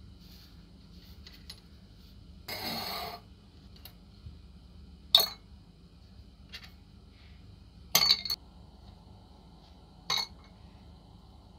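Small metal gun parts clinking against a glass jar of liquid: three sharp clinks a few seconds apart, the middle one a quick double-triple clink. A short rustling scrape comes before the first of them.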